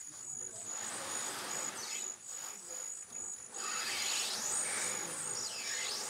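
An insect chirps in a steady, high pulse a few times a second, over the scraping and rubbing of stacked polystyrene ceiling sheets being slid out of a van's cargo space, loudest in the second half.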